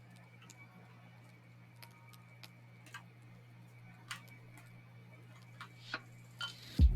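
Faint, irregular clicks of keyboard keys being tapped, over a steady low hum. A loud sound breaks in right at the end.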